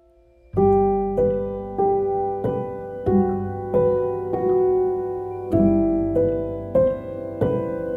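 Background piano music: a gentle melody of single struck notes at an even, slow pace, starting about half a second in.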